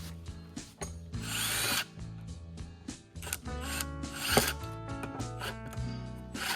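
Power drill running in short bursts, driving screws into wood, the longest burst a little over a second in. Background music plays underneath.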